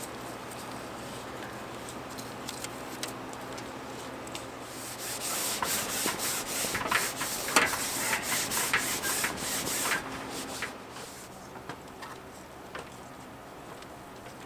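Scratchy rubbing and crinkling as a self-adhesive Velcro strip is pressed and smoothed along a seam of vinyl sheeting, loudest for about five seconds in the middle.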